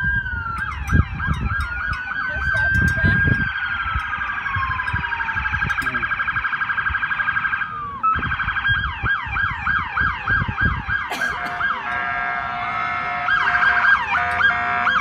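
Emergency-vehicle sirens of an approaching police escort: a slow rising and falling wail, then a fast warble, then repeated quick yelps. In the last few seconds several sirens overlap.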